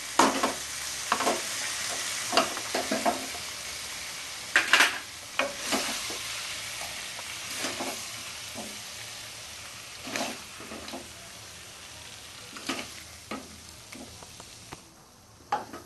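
A spoon scraping and knocking irregularly against a kadai as dry-cooked chicken curry is dished out of it, over a steady sizzle of the meat frying in its released oil. The sizzle fades gradually.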